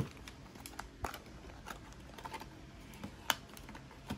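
Faint, scattered clicks and light rustling of a small cardboard blind box being handled and worked open by hand, with one sharper click about three seconds in.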